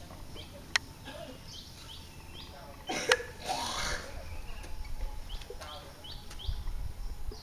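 Small birds chirping in short, repeated calls, with two sharp clicks, one under a second in and a louder one about three seconds in.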